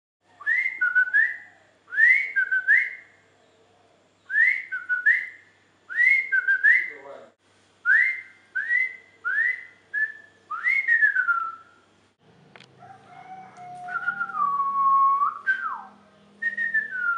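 A bird singing clear whistled phrases of two or three downward-sliding notes, repeated about every second or two. From about twelve seconds in, a longer, more varied whistled song comes over a faint low hum.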